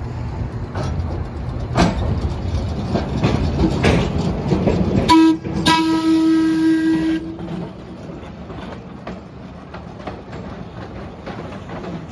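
A heritage electric streetcar rolling past on street track, its wheels rumbling and clicking on the rails. About five seconds in it sounds its horn twice, a short blast then a longer steady one. After that the running sound drops away as it pulls off.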